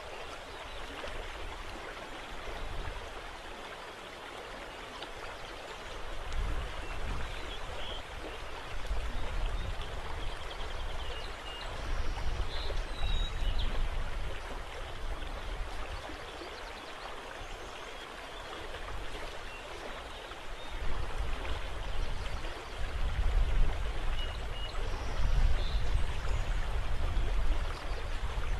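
River water lapping and rippling in a steady wash. A low rumble swells and fades several times and is loudest over the last several seconds.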